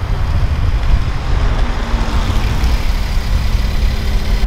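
A 2016 Volkswagen Jetta sedan drives slowly across a parking lot and pulls into a space. Its engine and tyres are heard over a heavy low rumble.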